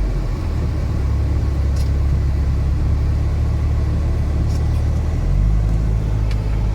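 Steady low rumble of a car driving, heard from inside the cabin, with a slight shift in the engine and road drone about five seconds in.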